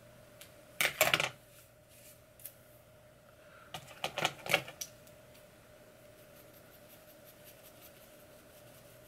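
Two short bursts of clicking and rattling from small hard objects being handled, one about a second in and a longer one about four seconds in, over a faint steady hum.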